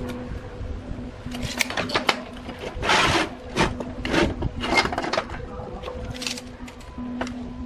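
Galvanized steel rectangular tubes being handled on a steel workbench: short metallic clicks and knocks as they are set down, and rubbing scrapes as they slide, the loudest about three seconds in. A faint low hum runs underneath.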